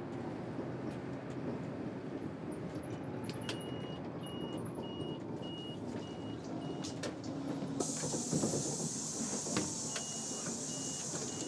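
Interior of a city bus: steady low engine and road rumble, with a high warning beeper sounding in short pips about twice a second from a few seconds in. About eight seconds in, a hiss of compressed air starts suddenly and fades over a few seconds, typical of the bus's pneumatic doors.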